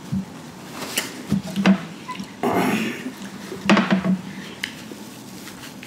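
Small mouth and eating noises, with a breath out and a few light clicks and knocks, one of them as a glass of ice water is picked up nearly four seconds in.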